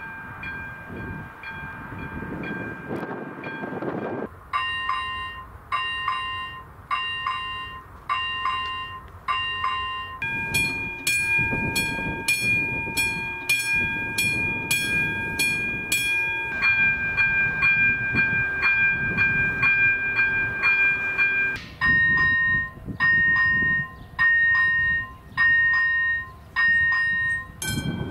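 Warning bells of several Czech railway level crossings in turn, ringing while the red lights flash to signal an approaching train. The ringing changes abruptly about 4, 10, 16 and 21 seconds in as each crossing's bell takes over. Some ring as a continuous fast chime, others as separate pitched dings about once or twice a second.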